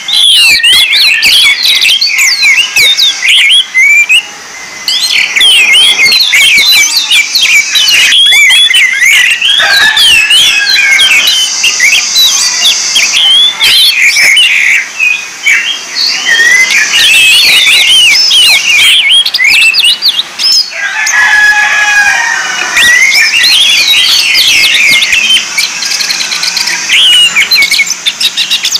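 Orange-headed thrush singing a loud, continuous, fast-changing song of rapid whistled notes and glides, with a few abrupt breaks.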